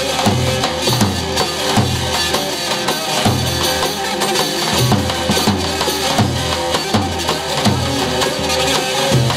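Instrumental Turkish folk music played live: a davul, a large double-headed bass drum, beats a steady rhythm under a melody from an electronic keyboard and a bağlama.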